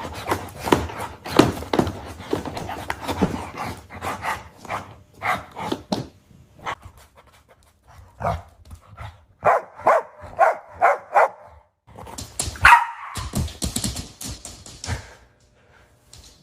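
Dog barking repeatedly, with a run of about five quick barks near the middle.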